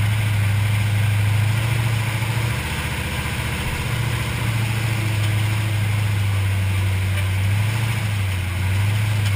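A trophy truck's engine runs at low revs as the truck rolls slowly, heard from inside the cab as a steady low drone with hiss above it. The drone dips briefly about three seconds in, then steadies again.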